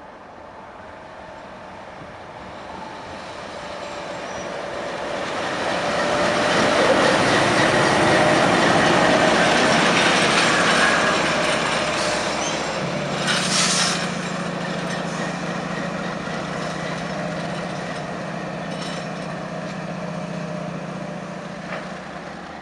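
Diesel locomotive hauling tank wagons comes closer and passes at close range. Its engine grows steadily louder to a peak about seven to twelve seconds in. A short hiss comes just after the locomotive passes, then the wagons roll by with a steady low rumble.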